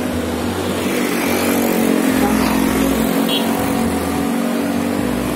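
Street traffic dominated by small motorcycles and scooters riding past, engines running steadily, with the loudest pass about two seconds in.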